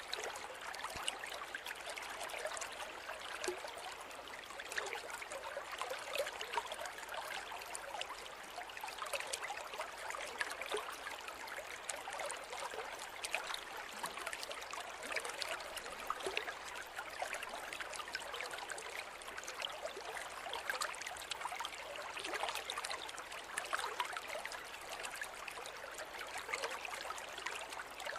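Forest river flowing steadily over rocks, a continuous rushing and trickling of water with small splashes throughout.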